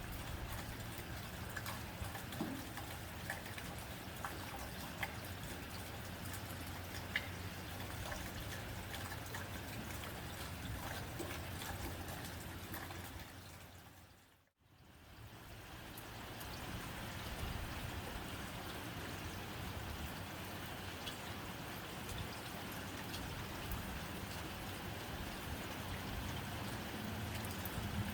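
Rain falling on a tin roof: a steady wash with scattered individual drops ticking on the metal. About halfway through it fades out to silence and fades straight back in.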